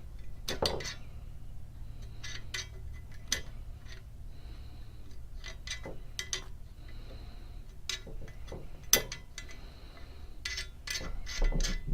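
Scattered metallic clicks and light scrapes of a GG&G heavy-duty bipod's clamp being worked onto a rifle rail and adjusted, with one sharper click about nine seconds in.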